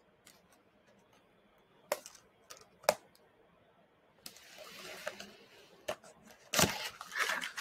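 A small cardboard box being handled and opened: two sharp taps, then the scrape and rustle of cardboard sliding. The handling is loudest near the end.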